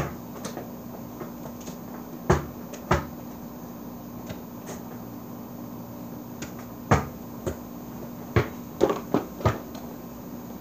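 A small basketball thudding against hard surfaces in separate thumps, then near the end a quick run of four bounces coming closer together as it settles.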